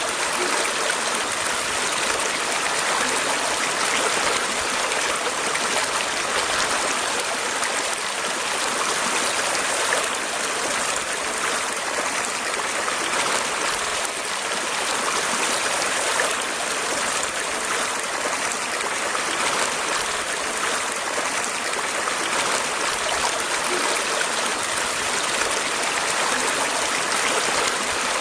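Running water of a stream flowing steadily over rocks, a continuous rushing and trickling.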